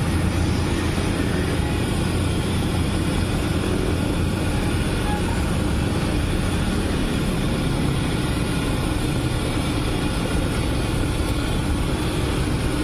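A large wok of vermicelli-stuffed tofu deep-frying in hot oil, a steady sizzle, over a steady low rumble of road traffic.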